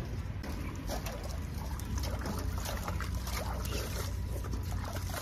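Water splashing in a metal basin as hands scoop it up and pour it over a head of hair being rinsed, in irregular splashes and drips over a low steady rumble.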